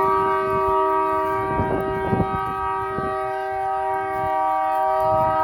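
Train horn sounding a long, steady chord, the signal for the railway museum's opening and closing.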